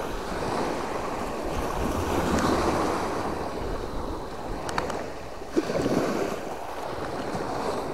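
Small sea waves breaking and washing up a pebble beach in surges, with wind buffeting the microphone. A couple of faint clicks come about halfway through.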